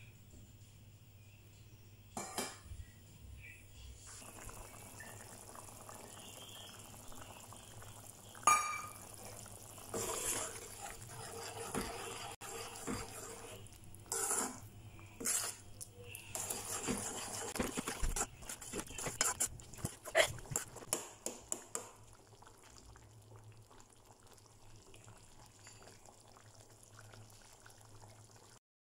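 Potato masala gravy simmering in a metal pan while a metal spoon stirs it, with scattered clinks, knocks and pops of spoon against pan and bubbling, one sharp ringing clink about a third of the way in, over a steady low hum. The clatter dies away for the last several seconds, leaving the quiet simmer.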